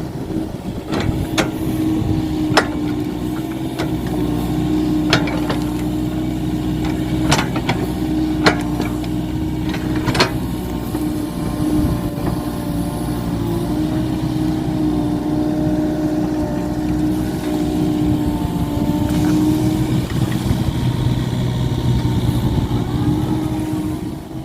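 Komatsu PC45 mini excavator's diesel engine running steadily under work, with several sharp knocks in the first ten seconds. It fades out at the very end.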